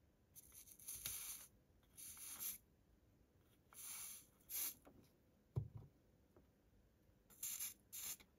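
Soldering iron's chisel tip drawn along a fluxed white-metal joint, dragging the solder down the seam: about six short, faint scratchy hisses, with one dull knock about five and a half seconds in.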